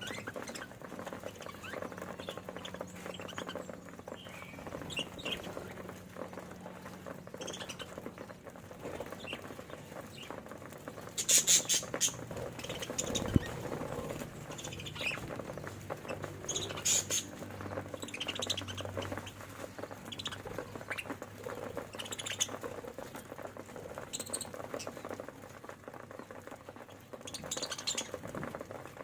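Budgerigars cracking and pecking seed, a steady patter of tiny clicks, with scattered short high chirps. A louder burst of high-pitched calling comes about eleven seconds in.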